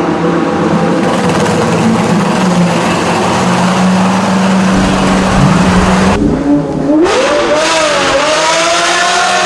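Lamborghini Murciélago V12 running loud at held revs. After an abrupt cut about six seconds in, the revs climb over about a second and hold high.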